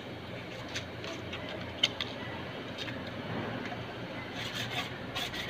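Screwdriver working the screws of a removed Suzuki Multicab carburetor: scattered small metal clicks, a sharper one about two seconds in, and a quick run of clicks near the end, over a steady background hum.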